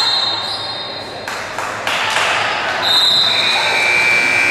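Basketball game in a gym: the ball bouncing twice on the hardwood floor in the middle, with high-pitched squeaks from the court at the start and again in the second half, over the echoing noise of the hall.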